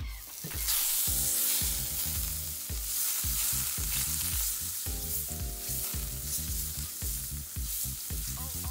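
Butter sizzling as it melts in a hot cast iron skillet, with the soft scrape of a silicone spatula stirring it around the pan. The sizzle sets in just after the butter goes in and keeps up steadily.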